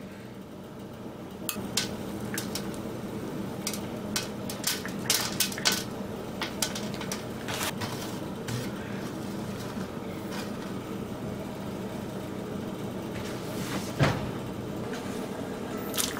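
Scattered light clicks and taps from food being handled on a metal baking tray, over a steady low kitchen hum, with one louder thump near the end.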